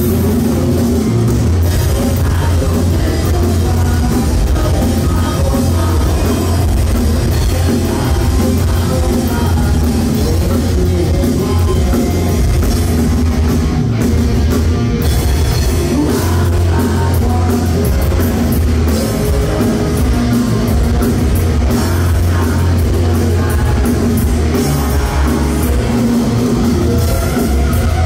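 A thrash metal band playing live and loud: distorted electric guitars, a pounding drum kit and a singer's vocals, heard from the front of the crowd through a phone's microphone.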